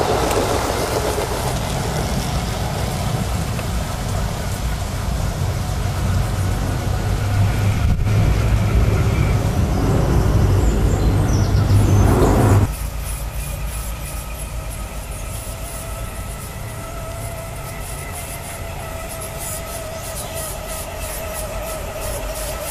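Aster Gauge 1 electric model train (New York Central 'Commodore Vanderbilt' Hudson with four cars) running on garden track, its wheels rumbling steadily over the rails as it passes close by. About halfway through the sound cuts abruptly to a quieter, steady electric motor hum with a whine, with quick clicking near the end as the locomotive approaches.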